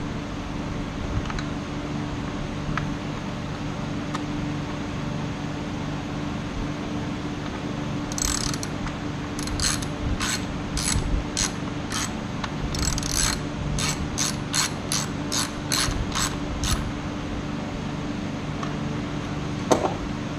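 Ratchet wrench clicking in short runs of strokes, two or three a second with a few quick flurries, as the motorcycle radiator's fasteners are tightened during reinstallation. A steady hum runs underneath.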